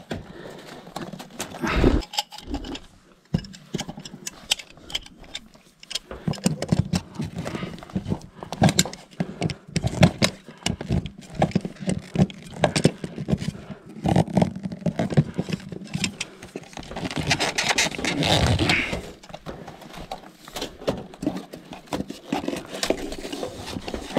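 Hand-work on flexible plastic conduit and a plastic electrical box: irregular clicks, knocks and rustles of the tubing being handled and of blue-handled cutters and pliers at work.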